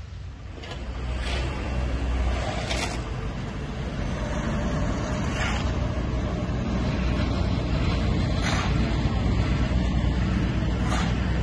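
Diesel construction machinery at a road works running with a steady low rumble, with several short, sharp noises scattered through.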